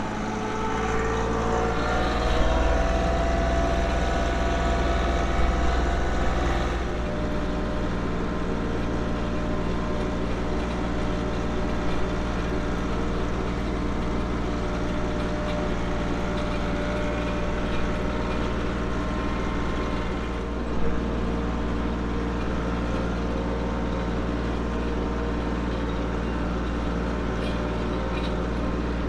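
A motor vehicle engine running steadily while driving. Its pitch rises over the first couple of seconds as it picks up speed, settles about seven seconds in, then holds level.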